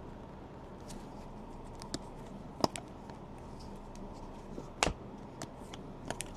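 Trading cards being handled and flipped through, with a few sharp clicks and snaps, the two loudest about two and a half and five seconds in.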